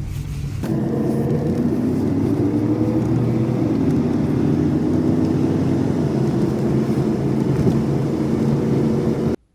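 Vehicle engine running while driving, a steady drone that steps up under a second in and stops abruptly near the end.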